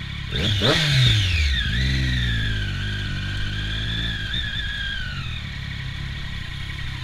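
Triumph Daytona 675's inline-three engine, fitted with an Arrow exhaust, revs up sharply about half a second in, then drops back to a low steady pull through slow traffic. A high whine runs alongside it and fades out about five seconds in.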